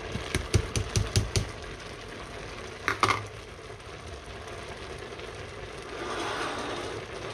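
A plastic bowl knocked several times in quick succession against the rim of a steel cooking pot to shake out pounded crayfish, then a louder double knock about three seconds in. A steady hiss from the simmering pot of beans runs underneath.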